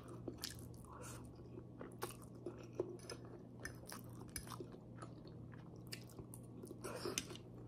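Close-up eating sounds: soft chewing and mouth clicks over a mouthful of spaghetti, with scattered light clicks as a fork works through the pasta on the plate. A faint steady hum runs underneath.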